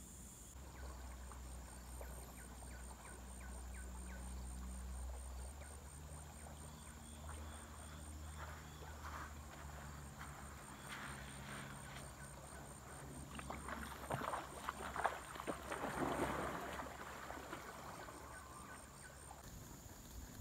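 River-bank ambience: a high insect chirp pulsing fast and evenly, with water splashing that grows louder from about two-thirds of the way in.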